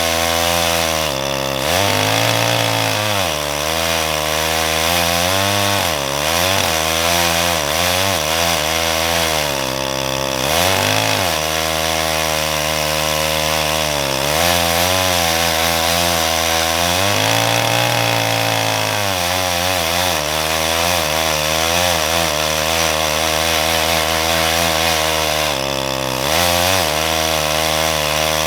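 Farmertec G888 chainsaw, a big two-stroke Stihl MS880 clone, running wide open through a log on a chainsaw mill with a six-foot bar. Its engine note sags and climbs back every few seconds as the cut loads and eases.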